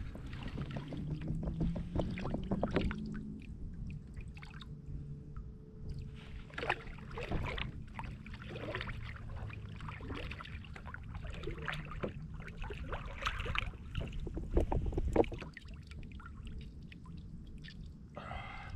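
A kahawai being landed by hand on a kayak: irregular knocks, splashes and rustles of the fish, water and gear against the hull, over a low steady rumble of wind and water.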